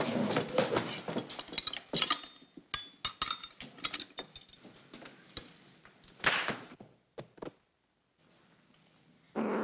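Cutlery and plates clinking and knocking at a dinner table: a dense run of small clicks and knocks that thins out over the first five seconds, with a short rustling burst at about six seconds. It then falls to near silence, and a sudden louder sound starts just before the end.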